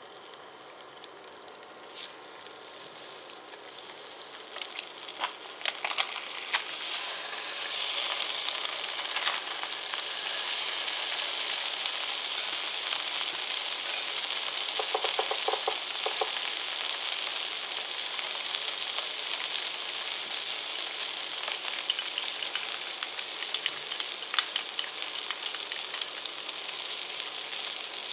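Sawara (Japanese Spanish mackerel) fillets frying in oil in a frying pan: a sizzle that builds over the first several seconds and then holds steady, with scattered sharp pops of spitting oil.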